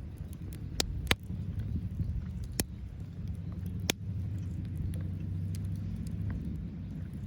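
Wood fire crackling in a small fire stand, with four sharp pops in the first four seconds and faint ticks between. A steady low rumble runs underneath.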